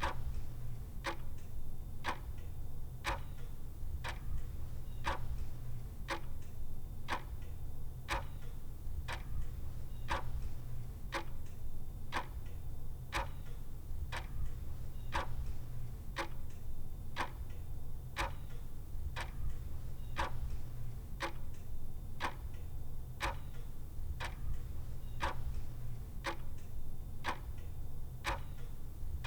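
A clock ticking steadily, with evenly spaced sharp ticks over a steady low hum.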